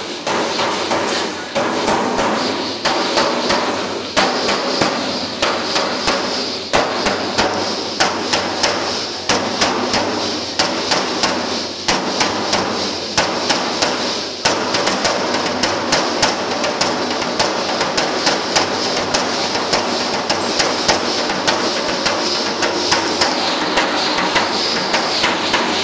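Matachines dance percussion: a long run of sharp, loud strikes, several a second, over a steady shaking hiss, with no voices.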